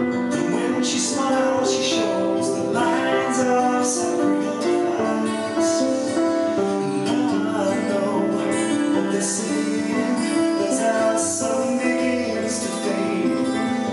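Slow ballad played on electronic keyboards, with a plucked, guitar-like part over held chords.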